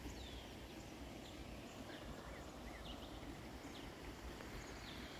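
Small birds chirping: scattered short, down-slurred calls, several a second, over a low steady background rumble.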